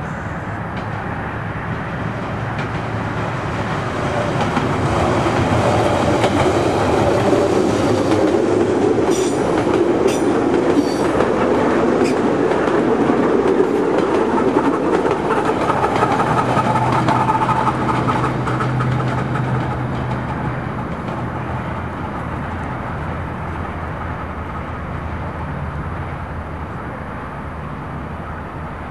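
Soviet-built E-series metro train running past on open surface track. The rumble of the wheels on the rails grows louder over the first few seconds, stays loud for about ten seconds as the cars go by, then fades away as the train recedes.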